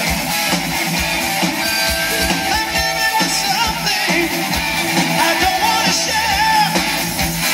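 Live 1980s-style rock band playing: distorted electric guitars and a drum kit, with a singer's vocals over them.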